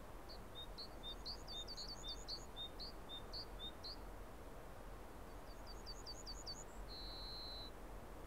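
Small songbird chirping faintly: a quick run of short high notes, a pause, a second shorter run, then one held high whistle near the end, over faint outdoor hiss.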